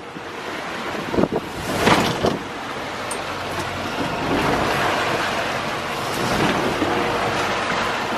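Wind buffeting the microphone over the rush of choppy sea water around a small fishing boat, with louder surges about one and two seconds in.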